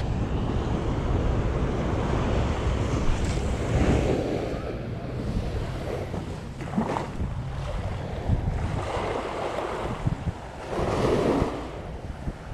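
Ocean surf washing onto the beach, swelling about four seconds in and again near the end, with wind rumbling on the microphone.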